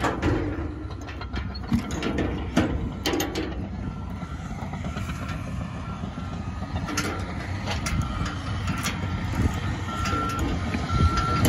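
Sharp metal clicks and knocks of a dump trailer's tailgate latch and locking pin being handled, over a steady low vehicle rumble. A backup alarm beeps on and off, clearer near the end.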